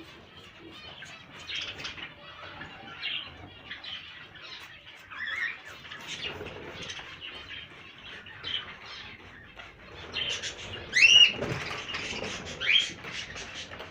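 Many caged aviary birds chirping and fluttering their wings, a busy stream of short calls and wing flaps, with louder sweeping calls around eleven seconds in.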